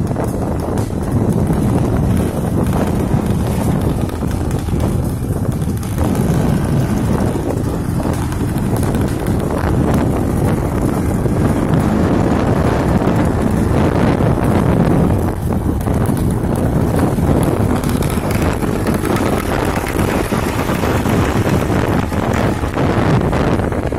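Wind rushing over the microphone of a moving motor scooter, with the scooter's engine running steadily underneath.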